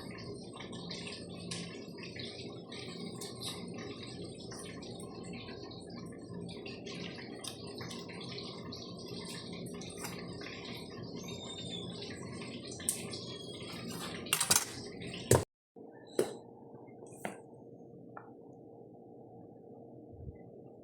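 Kitchen work sounds: small clinks and clatters of utensils and dishes over a steady background hum, with several louder knocks and clacks near the middle. After a brief cut-out the sound goes quieter, with only a few scattered clicks.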